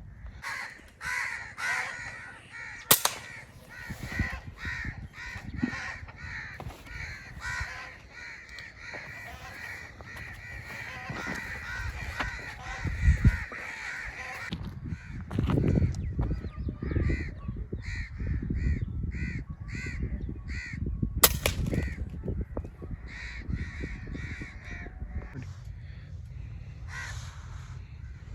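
Crows cawing over and over, a dense chorus of calls for the first half, then single caws about twice a second. Two sharp cracks, air-rifle shots, ring out about three seconds in and again near twenty-one seconds.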